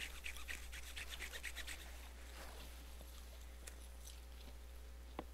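Faint, rapid, rhythmic scraping, about six or seven strokes a second, that stops about two seconds in. After it there is only a faint background and a single sharp click near the end.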